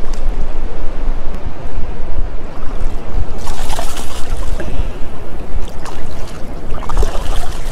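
A hooked flounder thrashing and splashing at the water's surface as it is brought to a landing net, in two bursts, about three and a half seconds in and again near the end. Wind buffets the microphone and shallow surf laps throughout.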